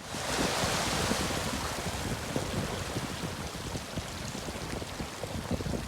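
Seaside wind and surf: a steady rushing noise with irregular low rumbles of wind on the microphone. It fades in at the start and eases slightly after about two seconds.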